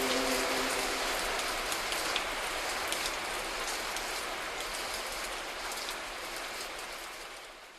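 Recorded rain falling steadily with scattered distinct drops, slowly fading out. The last held chord of the music dies away about a second in.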